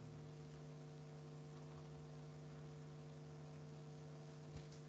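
Near silence with a faint steady electrical hum, and a faint click near the end.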